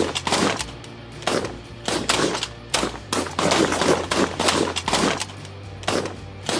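Several hunters' shotguns firing a rapid, uneven volley at ducks, about two to three shots a second, each shot ringing out briefly.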